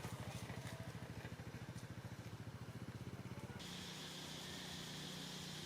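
A motor running with a fast, regular low pulse, which cuts off abruptly a little past halfway, giving way to a steady low hum with a steady high hiss.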